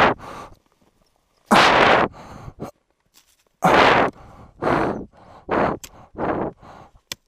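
A climber scrambling up a steep snow slope with hands and ice axe: a run of short, loud noisy bursts at uneven intervals, with a near-silent pause of about a second before the middle burst.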